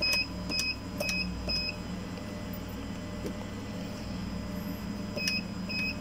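ATM keypad beeping as account-number digits are keyed in: short electronic beeps, four about half a second apart, then a pause and two more near the end, over a low steady hum.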